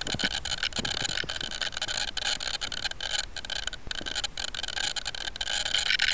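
Steady high-pitched electronic hiss and whine from an 808 keychain camera strapped to a powered-up but stationary Blade 130X electric RC helicopter, with a few faint clicks.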